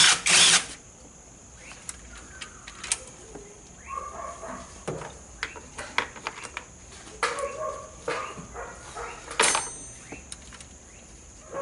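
A cordless power tool runs briefly at the start, spinning out a bolt on the motor-generator (MG1) cable connection of the hybrid inverter. It is followed by scattered clicks and knocks of tools and metal parts being handled, with another short burst of noise about nine seconds in.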